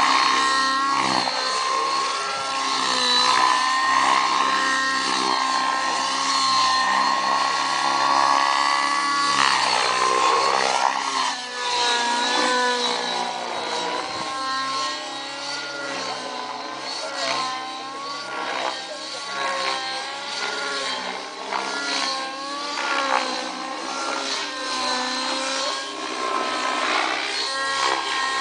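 Rave 90 nitro-engined radio-controlled helicopter in flight: the glow engine and rotor whine hold a fairly steady pitch at first, then rise and fall over and over as the model is thrown through manoeuvres.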